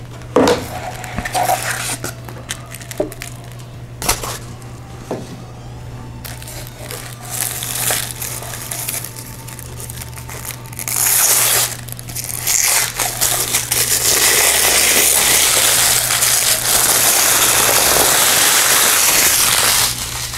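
Watch box being unwrapped by hand. There are scattered taps and knocks in the first half, then loud, continuous crinkling and rustling of the wrapping as it is worked off the box, through most of the second half.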